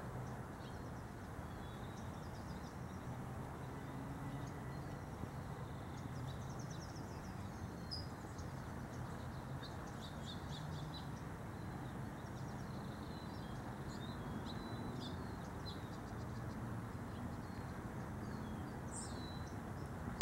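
Garden ambience: small birds chirping in short, scattered calls over steady low background noise, the chirps busiest in the middle and later part.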